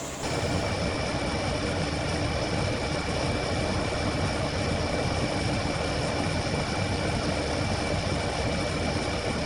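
Steady machine-like whir with a faint high whine. It cuts in abruptly and holds evenly throughout.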